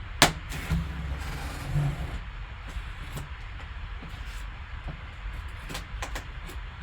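Packaging being handled while a box is opened: a sharp click, then about two seconds of rustling, then a few light clicks near the end, over a steady low hum.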